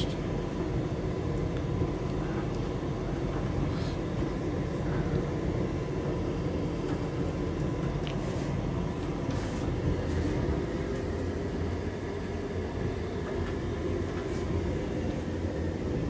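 Hotpoint Aquarius CDN7000 condenser tumble dryer running in its cool-down phase: the drum and fan make a steady low rumble with a faint constant hum, and a few light ticks sound now and then.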